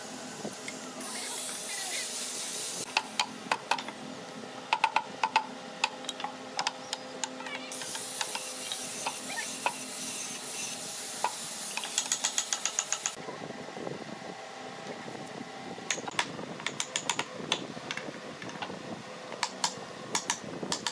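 Wooden chair parts knocking and clicking as joints are fitted together, over a steady workshop machine hum. Two long bursts of hiss come in, and a quick rattle of clicks about twelve seconds in.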